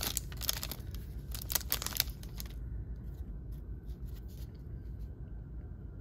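Foil trading-card pack wrapper crinkling as the stack of cards is pulled out, stopping about two and a half seconds in. After that come faint, scattered soft ticks as the cards are slid through the hands.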